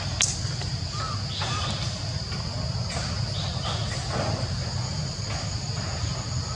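Several short, harsh animal calls over a steady high insect drone and a low steady rumble, with a sharp click just after the start.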